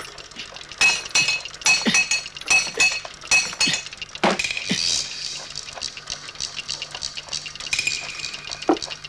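A rapid series of sharp clinking, breaking impacts with a ringing after each, about ten in the first five seconds, then a lighter scattered clatter and one last hit near the end.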